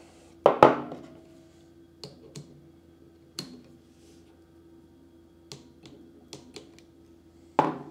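Scattered light metallic clicks and taps of a socket and click-type torque wrench being fitted and worked on a ceramic-plunger retainer nut of a CAT pressure washer pump, torqued to 55 inch-pounds. There is a sharper clank about half a second in and another near the end.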